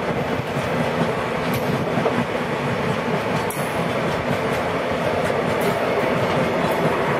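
Open-top freight wagons rolling past on the track: a steady rumble and clatter of steel wheels on the rails, with a few faint brief squeals.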